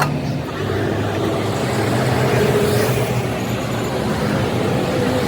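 Engine running steadily, a low drone with a faint higher hum, and a sharp click right at the start.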